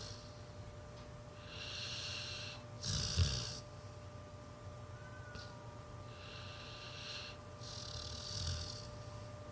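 Pit bull snoring in her sleep: two slow, airy breaths, each ending in a short low snort, a few seconds apart.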